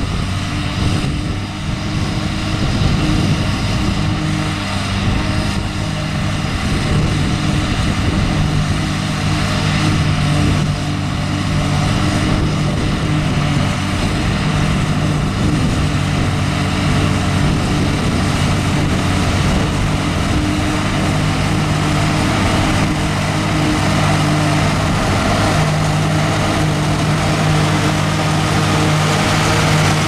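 John Deere tractor engine pulling under load while a New Holland FP230 pull-type forage harvester runs behind it, its cutterhead and blower droning steadily as it picks up and chops a windrow of hay for haylage. The drone grows slightly louder near the end.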